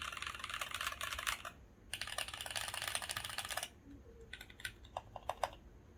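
Typing on a Mark 65 gasket-mounted mechanical keyboard with stock Kailh Cream linear switches and PBT Cherry-profile keycaps, dampened with foam and silicone. Two bursts of fast, continuous typing separated by a short pause, then a handful of slower single key presses before it goes quiet.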